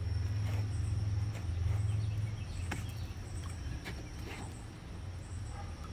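A steady low hum, with a few faint taps and rustles as a rack of ribs is handled on butcher paper; the clearest taps come near the middle.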